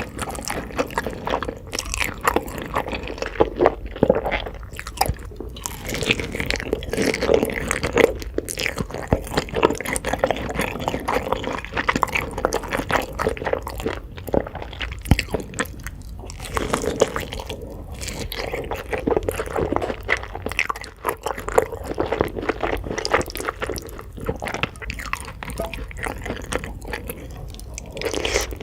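Close-miked eating: continuous chewing and biting of food, with many small wet clicks and crisp crunches.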